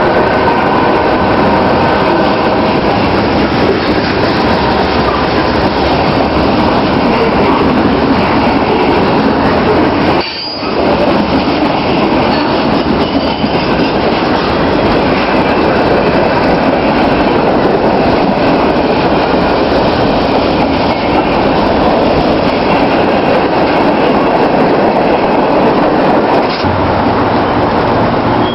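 A rail car running on its tracks: a loud, steady rumble and rattle of wheels on rail, with a brief drop about ten seconds in.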